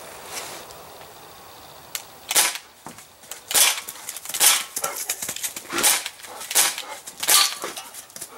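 Crosman C11 CO2-powered BB pistol fired in semi-automatic, about seven sharp pops roughly a second apart, starting about two seconds in.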